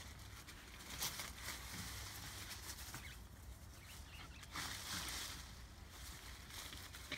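Faint rustling and crackling of dry leaves and plant foliage, in irregular bursts.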